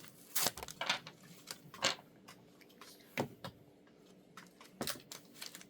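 Scattered light crinkles and taps from handling a foil Pokémon booster pack, a handful of short sharp sounds a second or so apart.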